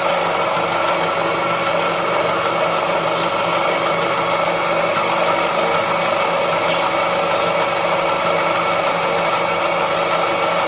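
Small electric noodle-making machine running, its motor giving a steady hum that holds even throughout.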